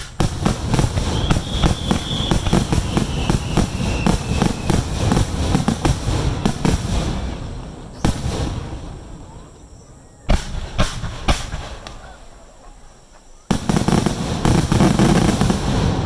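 Aerial fireworks bursting in a rapid barrage of bangs and crackles that thins out and fades about halfway through. A few single bangs follow, then a dense rumbling barrage starts abruptly near the end.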